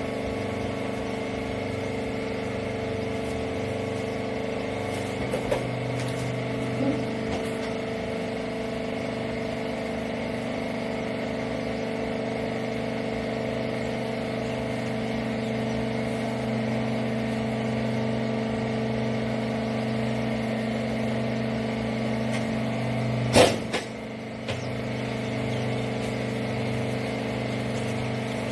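Hydraulic wiper bagging baler running: a steady machine hum from its motor and pump, with a few light clicks and one loud, sharp knock about 23 seconds in.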